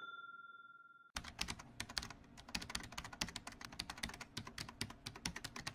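Keyboard typing sound effect, a quick run of clicks starting about a second in, after the last of a bell ding fades out.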